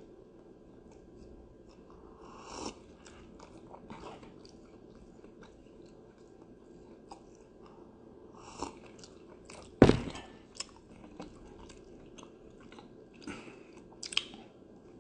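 Quiet mouth sounds of sipping from a mug, among scattered clicks and knocks of handling close to the microphone; the loudest is a sharp knock about ten seconds in.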